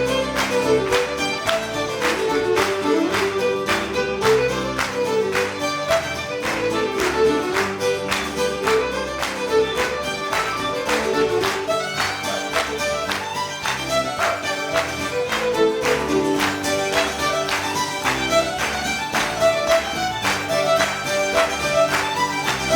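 Fiddle playing a lively instrumental tune over a band keeping a steady beat.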